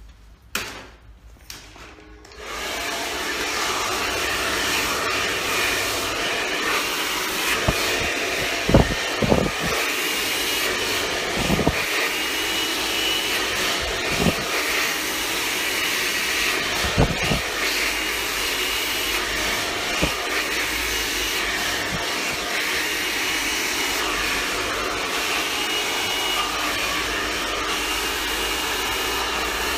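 Hand-held hair dryer switched on about two seconds in and running steadily while wet hair is blow-dried over a round brush. A few short knocks come in the middle.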